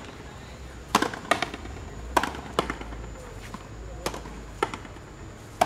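Frontenis rally: the rubber ball cracking sharply off the rackets and the front wall in turn, about seven hits, often in quick pairs, ringing briefly in the walled court.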